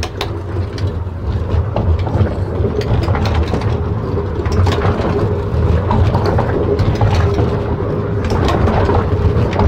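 A giant human hamster wheel rolling as a child runs inside it: a steady, loud rumble with scattered clatter and knocks from the wheel and footsteps.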